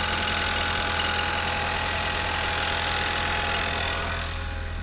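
2018 Ford Fusion's engine idling steadily, heard close up from the open engine bay, running on its newly fitted battery. The sound thins a little near the end as the microphone moves away from the bay.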